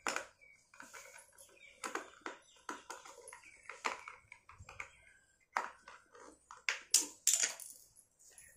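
Screwdriver turning a screw into a toddler tricycle's hard plastic handlebar and head, with irregular clicks, knocks and scrapes of plastic and metal.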